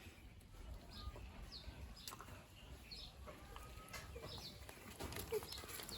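Faint bird chirps, short high notes repeating about once or twice a second, with a few soft clicks.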